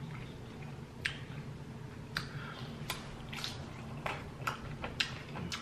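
Close-miked chewing of a fried queso birria taco: a string of wet mouth clicks and crunches, about eight over the few seconds, each short and sharp.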